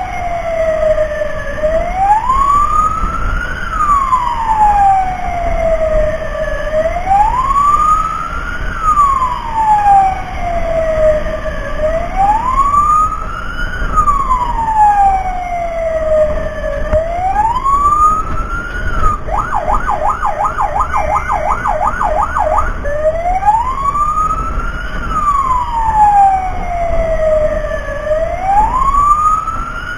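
Fire-rescue truck's electronic siren wailing, rising and falling about every five seconds. Just past the middle it switches for about three seconds to a fast yelp of about four sweeps a second, then goes back to the wail. A low rumble runs underneath.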